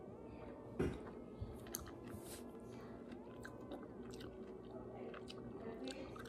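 Close-up chewing of soft ripe mango, with small wet mouth clicks and smacks at irregular intervals and one louder bite about a second in.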